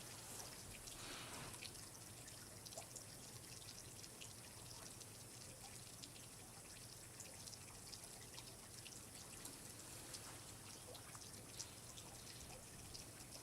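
Faint water dripping and trickling: many small, irregular drips over a steady soft hiss.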